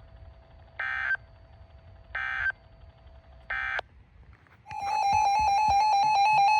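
NOAA Weather Radio digital SAME data bursts: three short buzzy bursts about a second apart, the end-of-message code that closes a warning broadcast. Near the end, a loud steady electronic alert tone with a fast pulsing edge starts up: a weather radio's alarm sounding.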